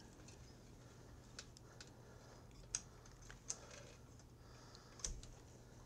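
Faint, scattered clicks and small metal taps as the throttle bracket and governor spring linkage are handled on a small engine, with a soft thump about five seconds in. A low steady hum sits underneath.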